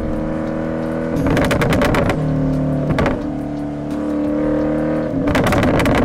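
Jaguar F-Type R's 5.0-litre supercharged V8 with a sports exhaust running at steady revs, with bursts of rapid crackling pops from the exhaust about a second in, around three seconds in, and near the end.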